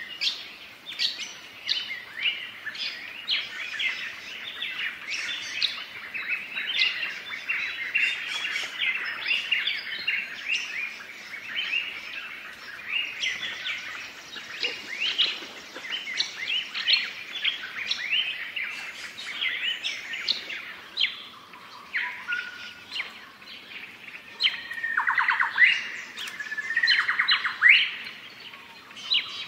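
Many birds chirping and calling at once in a dense chorus, with two louder rapid trills near the end.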